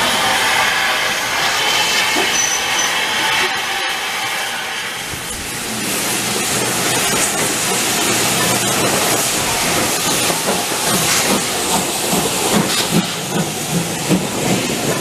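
Steam locomotives: steam hissing from the standing LNWR Webb coal tank No. 1054, then GWR 1500-class pannier tank No. 1501 working a train slowly past in a cloud of hissing steam, its exhaust beat pulsing more clearly over the last few seconds.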